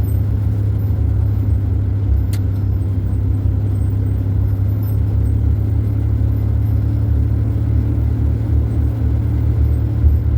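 Steady low rumble of a van's engine and road noise heard from inside the cab while driving, with a single brief click about two seconds in.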